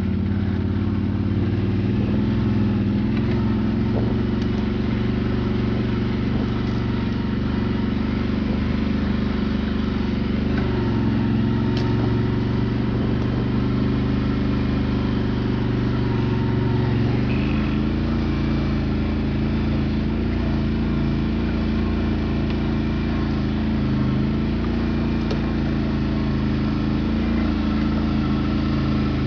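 Quad (ATV) engine running steadily under load as it climbs a rutted forest track, heard from on board; its note changes about seventeen seconds in.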